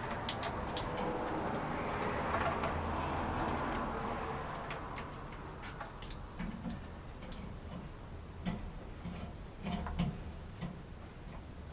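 Flexible water heater connector pipe being bent and handled: a run of small metallic clicks and ticks, with rubbing noise over the first few seconds.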